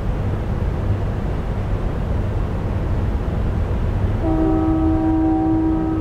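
A synthesized recreation of a distant Nathan P2 train horn, with reverb, sounds one long steady blast beginning about four seconds in. Under it runs a steady low background rumble.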